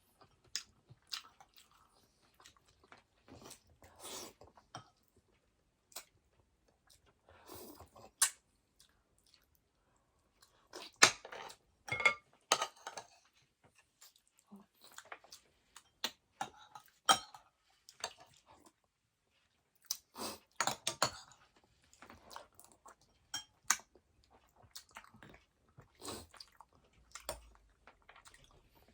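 Close-up eating sounds: intermittent chewing and mouth sounds over lugaw (rice porridge), with scattered short clicks of a spoon against the bowl.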